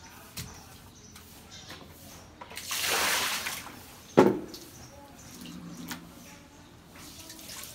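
Water splashing onto a wet concrete floor for about a second, then a single sharp wet slap, the loudest sound, with smaller splashes and drips around them.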